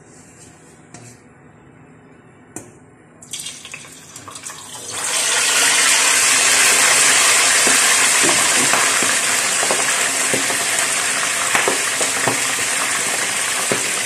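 Crispy pata (a whole pork hock) going into hot oil in a large stainless steel pot. After a couple of light knocks, the oil bursts into loud sizzling about three to five seconds in and goes on bubbling steadily, dotted with popping crackles as the skin spatters in the oil.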